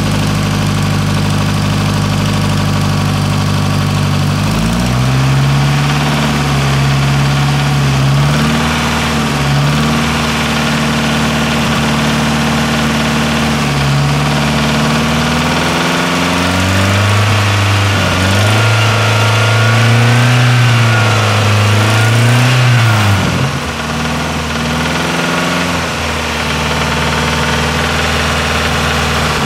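Nissan CA18DET turbocharged four-cylinder engine idling, then held at raised revs that rise and fall in steps for about twenty seconds before dropping back to idle. It is being run to show a knock that the owner suspects comes from worn big-end or main bearings, possibly needing a crank grind.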